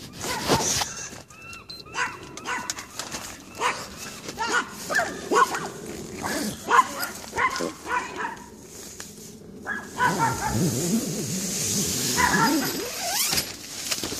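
A dog barking in short repeated yaps, with rustling of nylon tent fabric for a few seconds near the end.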